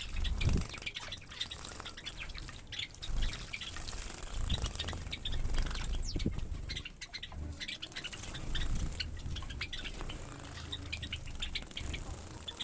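Small finches and Java finches chirping in short, rapid calls while bathing, with repeated water splashes and wing flutters.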